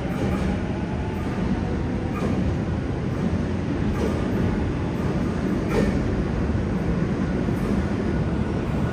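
NSW 86 class electric locomotive 8649 rolling slowly in along the platform, a steady low rumble and hum with a sharp clack about every two seconds from its wheels over the rail joints.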